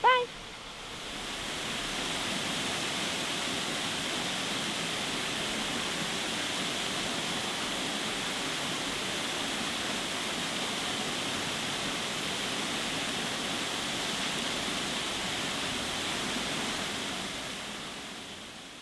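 Waterfall pouring into a deep creek pool: a steady rush of falling water that fades in about a second in and fades out near the end.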